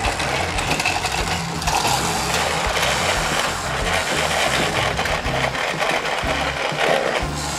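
Plastic gears of a toy playset whirring and clicking rapidly as its knob is hand-turned, over background music.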